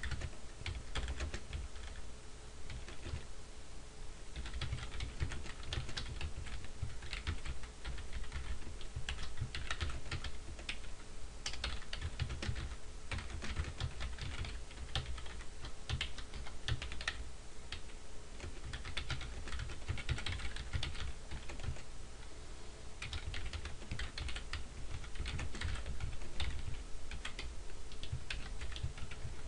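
Typing on a computer keyboard: a fast, irregular run of key clicks with brief pauses between bursts of words.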